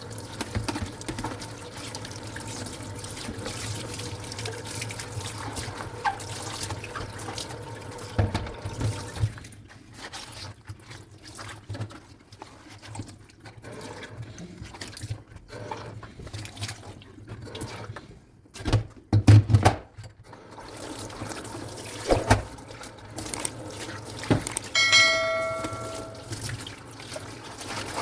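Dishes being washed by hand at a sink. Tap water runs steadily for about the first third, then stops. Dishes knock and clink after that, with a loud clatter past the middle and a dish ringing briefly near the end.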